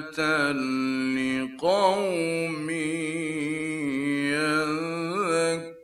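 Male Qur'an reciter chanting in the melodic, ornamented mujawwad style, from a 1960s Egyptian radio recording. Long held notes waver in pitch, with a short break about a second and a half in before a new phrase glides upward. The phrase fades out just before the end.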